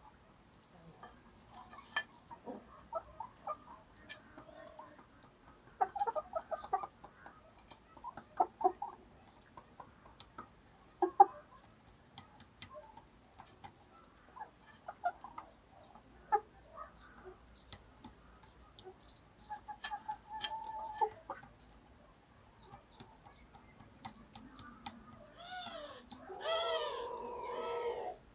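Chickens clucking in short, scattered calls, with sharp clicks in between. Near the end one bird gives a louder, drawn-out call: a few rising notes, then a long held note.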